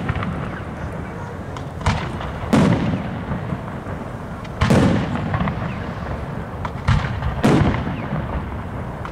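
Aerial fireworks shells bursting overhead: about five sharp booms, irregularly spaced a second or two apart, each followed by a rolling echo.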